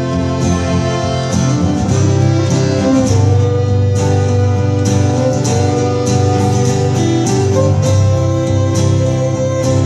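Small acoustic band playing a slow country-folk song: steadily strummed acoustic guitar with fiddle, cello and accordion.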